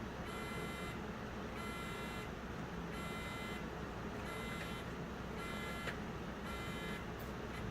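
Alarm buzzer of a Besam RD4 security revolving door beeping repeatedly, about one beep every 1.3 seconds, signalling a security violation. A single click about six seconds in.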